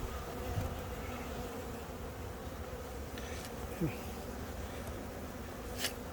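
Honey bees buzzing in a steady hum around a newly installed package hive. Near the middle one bee passes close by, its buzz dropping in pitch, and a short click sounds near the end.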